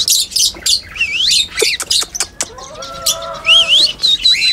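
Cockatiel whistling: a run of rising and falling whistles, ending in a held high note, over short sharp chirps from other cage birds and a lower call a little after halfway.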